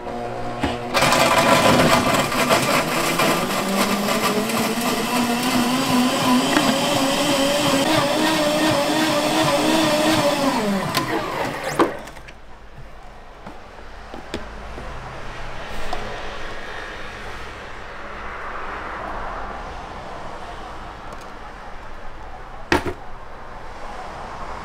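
Commercial blender blending a green fruit drink: the motor starts about a second in and rises in pitch as it spins up, runs loud for about ten seconds, then winds down and stops with a click. A quieter stretch follows, with a sharp knock near the end.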